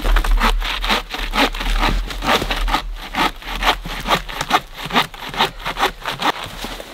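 Hand-held folding saw cutting through a dry, dead fallen log, rasping back and forth in quick, even strokes, about three a second.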